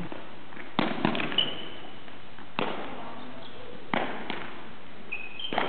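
About seven irregular dull thuds echoing in a large hall, from footbag kicks and players' feet on the court, with two brief high squeaks.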